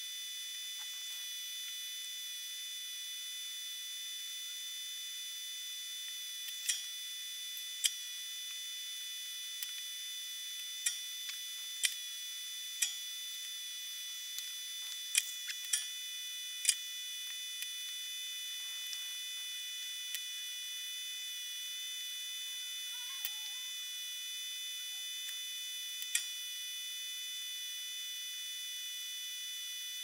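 A steady high-pitched electronic whine made of several tones, with about fifteen small sharp clicks and taps, mostly in the middle, from handling the circuit board and soldering iron during fine soldering work.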